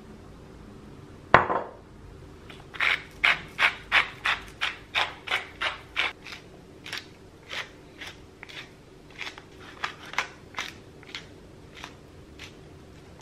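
A single sharp knock, then a wooden pepper mill twisted back and forth in quick scratchy grinding strokes, two to three a second, growing fainter toward the end.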